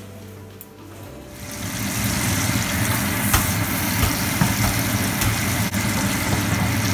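Onion and tomato pieces sizzling in a nonstick sauté pan as a wooden spatula stirs them, over a steady low hum, with a few light spatula taps. The cooking sound comes in about a second and a half in.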